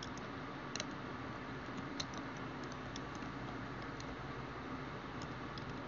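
Faint, scattered clicks of computer keyboard keys being pressed, spread irregularly a second or so apart, over a steady low hiss.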